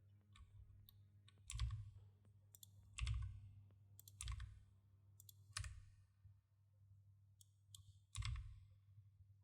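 Faint, scattered clicks of a computer keyboard and mouse: about five distinct keystrokes or clicks a second or more apart, with lighter ticks between them, over a steady low hum.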